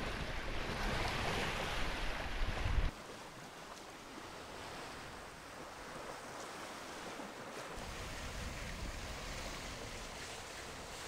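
Wind buffeting the microphone over the rush of water along a sailboat's hull as it sails, cutting off abruptly about three seconds in to a quieter, steady rush of water and wind.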